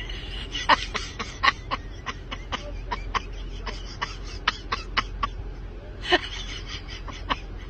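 Short, breathy bursts of stifled giggling from inside a car, a few a second and irregular, with a woman's voice muffled through the closed car window.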